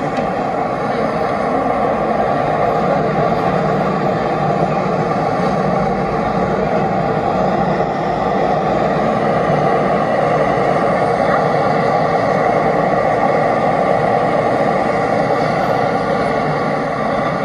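Steady, loud noise of passing vehicles on a city street.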